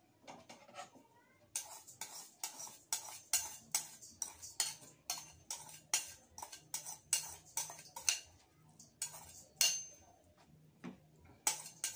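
A knife blade scraping sugar out of a ceramic bowl held over a stainless steel mixing bowl, in quick, sharp strokes of about two or three a second. The strokes pause briefly near the end, then start again.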